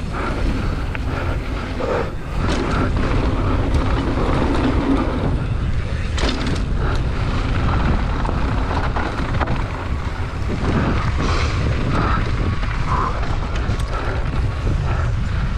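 Wind rushing over the microphone of a camera on a GT Fury downhill mountain bike at speed, with tyres running over dirt and loose gravel. Short knocks and rattles from bumps and landings come through at scattered moments.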